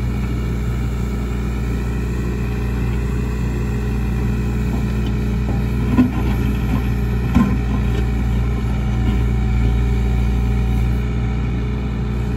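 John Deere backhoe loader's diesel engine running steadily while the rear bucket digs a trench, with two short knocks about six and seven seconds in.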